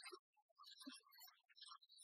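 Near silence with faint, patchy music.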